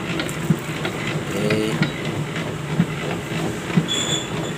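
Commercial bread-dough mixer running at second speed, its motor humming steadily while the dough hook kneads a large batch of white bread dough. Repeated dull knocks come every half second or so as the dough mass turns in the steel bowl.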